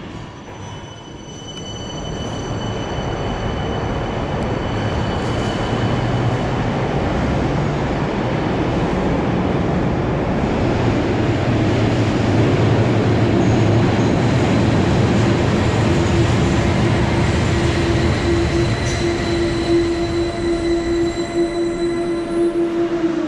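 A light-rail tram running into an underground station through its tunnel. The rumble of wheels on rail grows louder over the first ten seconds or so. A steady whine, which the audio tagger takes for wheel squeal, then builds and is strongest in the last several seconds as the tram pulls in alongside the platform.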